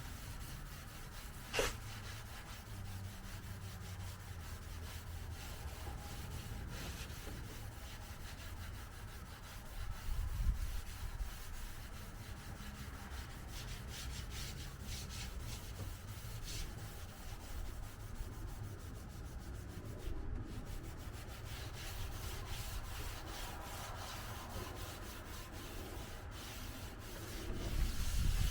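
Hand sanding of a car's painted body, sandpaper rubbed back and forth in short strokes to knock down orange peel in the paint. A sharp click sounds about a second and a half in.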